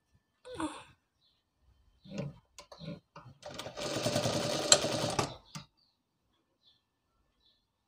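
Sewing machine running for about two seconds, a fast even run of needle strokes, stitching through the folded cotton edge of a face mask to hold the elastic. Before it come a few short knocks as the fabric is handled and set under the presser foot.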